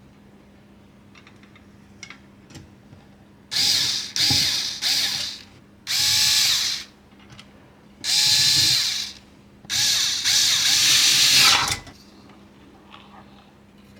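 Electric screwdriver driving screws in about six short runs, its motor whine rising as each run starts and dropping as it stops, fastening the power supply into the case.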